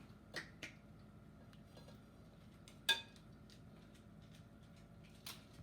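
Metal utensils clinking against a pot and dish: a couple of light knocks early on, one louder ringing clink about three seconds in, and another knock near the end.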